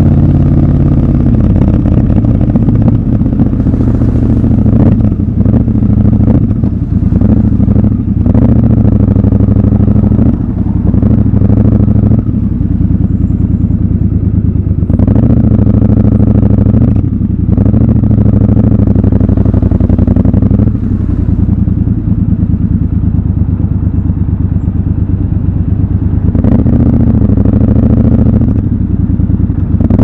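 Triumph Scrambler 1200 XC's 1200 cc parallel-twin engine running under way in city traffic, its note rising and dropping back several times as the bike accelerates and eases off.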